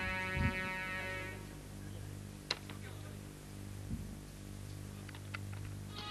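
Sustained music fading away over the first second or so, then a steady low electrical hum with a few faint clicks and knocks.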